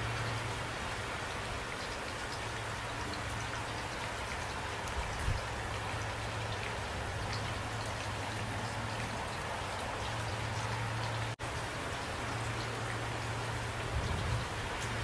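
Steady rain falling, a dense patter of drops hitting surfaces. The sound cuts out for an instant about eleven seconds in.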